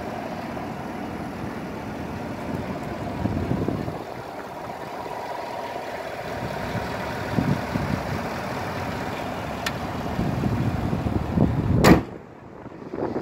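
Wind buffeting the microphone, then the Chevy Silverado pickup's hood slammed shut with a single loud bang near the end.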